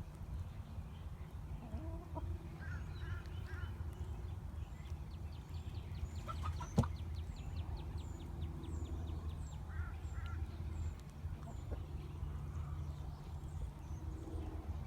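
Chickens calling and clucking in short bursts, with one sharp sneeze about seven seconds in from a hen the owner thinks has a cold.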